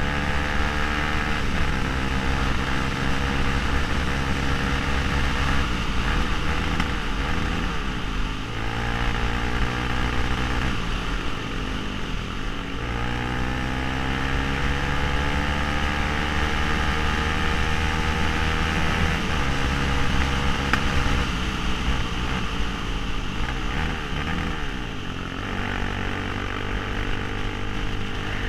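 Suzuki LTZ 400 quad's single-cylinder engine running under way, its pitch climbing and then falling back several times as it changes gear. Wind hiss on the helmet microphone.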